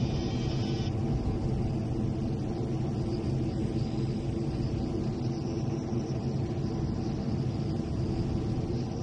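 Steady rumble of a single-jet Aermacchi MB-339 trainer in flight, heard from inside its cockpit: engine drone mixed with rushing air. A higher hiss drops away about a second in.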